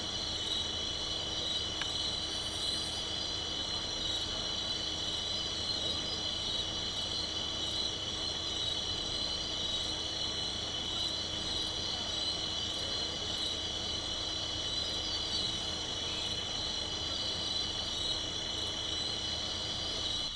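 A steady, shrill chorus of night insects that holds unbroken throughout, with a faint low steady hum beneath it.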